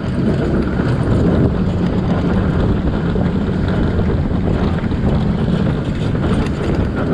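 Wind rushing over the microphone of a rider-mounted camera on a moving Vekoma suspended looping roller coaster, mixed with the low rumble of the train running along its steel track. The noise is steady and loud throughout.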